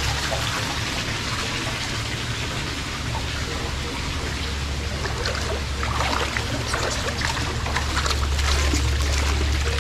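Spring water splashing and trickling steadily from rock spouts into hot spring pools, a little louder in the second half, with a steady low rumble underneath.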